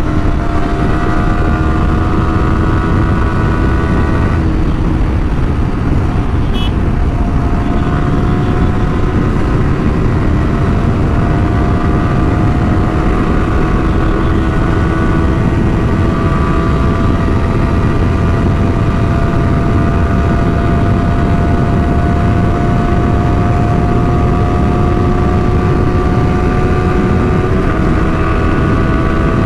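Yamaha R15's single-cylinder engine running hard at high speed, its note climbing slowly as the bike accelerates, with heavy wind noise on the microphone. The engine note breaks off briefly about four seconds in and then carries on climbing.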